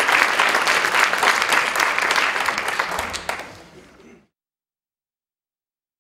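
Audience applauding, a dense patter of many hands clapping that thins out about three seconds in and is cut off abruptly about a second later.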